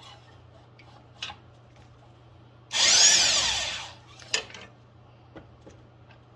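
Impact gun running in one burst of about a second and a half, its whine rising and then falling, as it spins the rust-seized top nut off an ATV's front shock and spring assembly. A few light clicks of metal parts being handled come before and after it.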